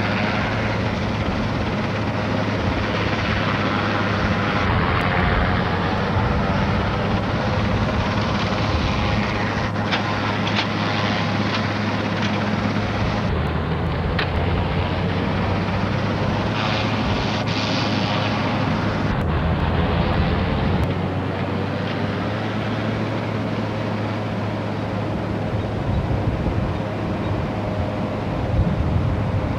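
Helicopter running with its rotor turning, a steady engine and rotor noise.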